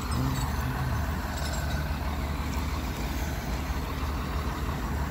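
Flatbed tow truck's engine idling steadily with a low, even hum.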